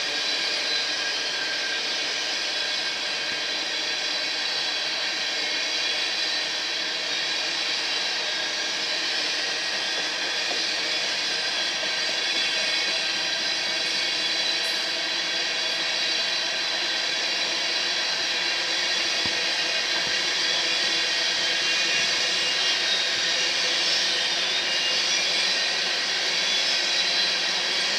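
Freight train tank cars rolling past: a steady hiss and rumble of steel wheels on the rails, with faint high ringing tones through it, growing slightly louder toward the end.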